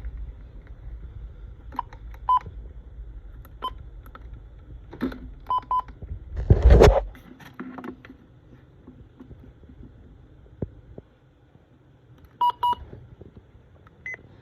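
Several short electronic beeps, some single and some in quick pairs, over a low rumble. About halfway through there is one loud burst of noise, and after it the rumble drops away.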